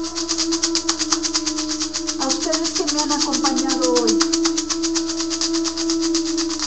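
Painted hand rattle shaken in a fast, even rhythm, over a steady low hum.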